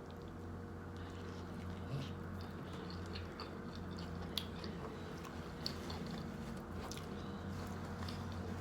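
A person chewing a mouthful of sandwich on crusty baked French bread, with scattered small crunches and wet mouth clicks over a steady low hum.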